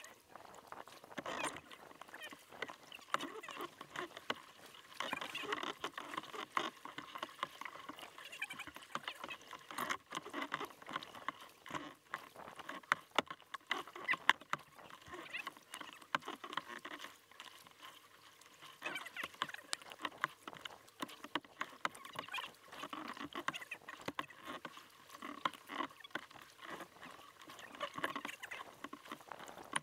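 Water lapping and splashing against a kayak's hull close by, with drips and splashes from the paddle: an irregular patter of small splashes and drips.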